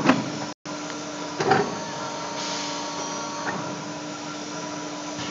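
Tube bending machine for vehicle exhaust pipes running with a steady hum. There is a sharp metal clank right at the start, another about a second and a half in, and a fainter knock about three and a half seconds in.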